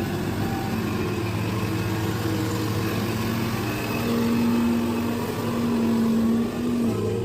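Heavy diesel engine of mining machinery running steadily. It rises in pitch and gets louder about halfway through, then drops back near the end.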